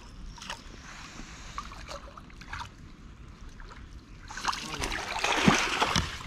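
Water splashing and streaming off a landing net as it is lifted out of the water with a caught fish in it. The net comes out about four seconds in, and the sound grows much louder and stays loud to the end, with small knocks mixed in. Before that there is only faint water and handling noise.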